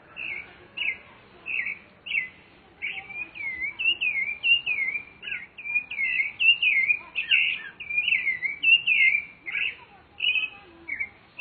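Rufous-bellied thrush (sabiá-laranjeira) singing: a few separate clear notes, then a fast run of rising and falling warbled phrases for several seconds, thinning to spaced notes again near the end.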